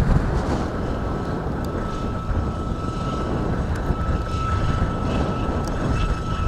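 Gusty wind buffeting the microphone, a steady low rumble, with a faint steady high whine running under it from about a second in.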